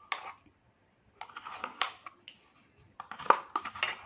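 Three short bursts of clicking, scraping and crunching: a spoon working yogurt through crisp salad leaves in a bowl.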